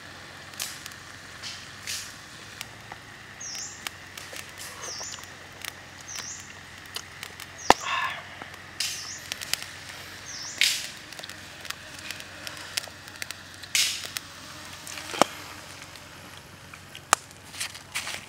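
Egg cooking in hot oil in a small square pan over a wood fire: a steady light sizzle with frequent sharp pops and crackles. A small bird chirps a short high call about five times in the background through the first half.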